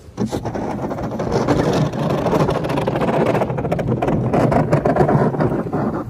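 Pickup truck with a front snowplow driving and pushing snow across a parking lot: a loud, steady rush of engine and blade on snow that comes in suddenly just after the start.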